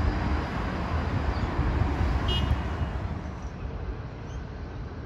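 Low rumble of a tram and road traffic that fades from about three seconds in, with one short high beep a little over two seconds in.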